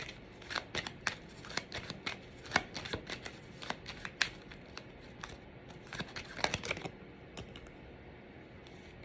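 A deck of tarot cards being shuffled: a quick run of papery snaps and slaps that stops about seven seconds in.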